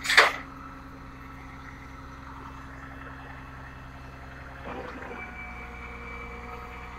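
Flatbed tow truck's engine running steadily, with a short loud hiss of air brakes just after the start.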